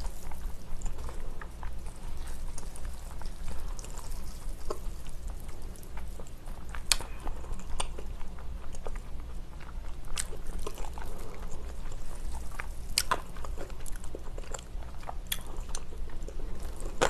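A person chewing and slurping cold noodles dressed in a spicy sauce, with wet mouth sounds and a few sharp clicks, the clearest about seven, ten and thirteen seconds in. A steady low hum runs underneath.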